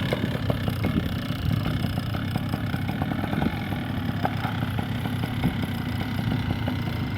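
Vittorazi Moster 185 Plus single-cylinder two-stroke paramotor engine running steadily at idle after being started, freshly fitted with a new exhaust and gaskets.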